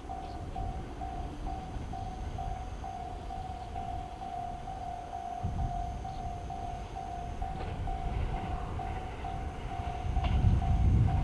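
Japanese level crossing warning bell ringing with a steady, evenly repeating ding. A train's low rumble builds near the end as it approaches.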